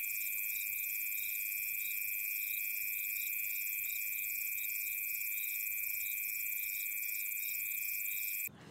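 A steady, high-pitched electronic tone with a hiss above it. It is cut in abruptly and cut off abruptly near the end: an edited-in beep over the soundtrack.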